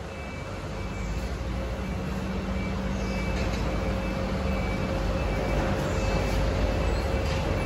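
A vehicle engine running steadily, a low rumble that grows louder over the first few seconds, with a faint steady whine above it.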